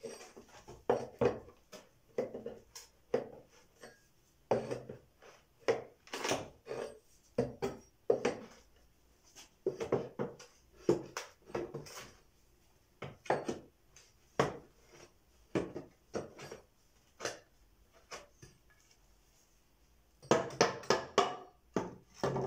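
Axe blade levering a board off a wooden pallet: a string of irregular creaks, cracks and knocks from the wood and nails as it is worked loose little by little, with a louder, denser clatter near the end as the board comes free.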